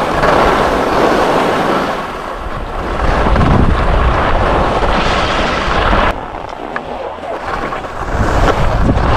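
Wind rushing over the microphone together with the scrape of Black Crows Atris skis carving on hard-packed groomed snow. The noise surges and eases, drops off suddenly about six seconds in, and builds again near the end.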